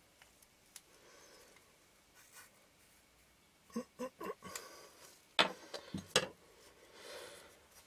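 Light clicks and taps of small metal lens parts and a metal tool being handled: a few faint ticks, then a quick cluster of clicks around the middle, followed by two louder short knocks.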